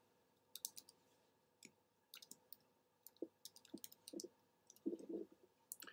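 Computer keyboard being typed on: quiet, short key clicks in small irregular clusters as a word is entered.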